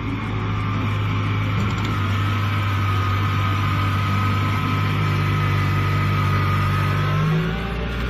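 Kubota DC-70 combine harvester's diesel engine running under load with a steady high whine over it as the machine drives through standing rice. About seven seconds in, the engine note drops and the whine fades.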